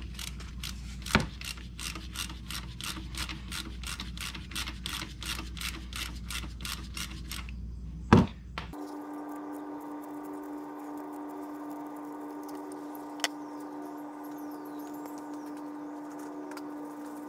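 Socket ratchet clicking in a quick even run, about four clicks a second, as the 5/8 oil drain plug is backed out, with a sharper knock about a second in and a loud clunk about eight seconds in. After that the clicking stops and a steady hum holds for the rest.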